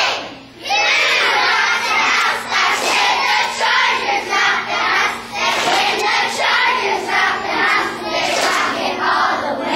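A group of young girl cheerleaders chanting a cheer in unison, many children's voices together in a rhythmic, sing-song call. The chant pauses briefly under a second in and then runs on.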